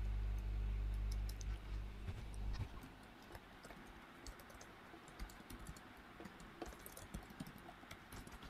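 Typing on a computer keyboard: a run of quick, irregular key clicks. A steady low hum fades out over the first second or two.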